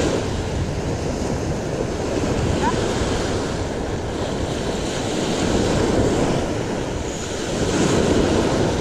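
Small sea waves breaking and washing up a sandy beach, the surf swelling and fading, louder about six and eight seconds in, with wind buffeting the microphone.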